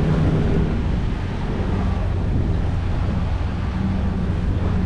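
Sailing yacht's Volvo Penta D2-75 diesel engine running steadily under way with a low hum, over wind and water noise; the engine runs smoothly with no vibration.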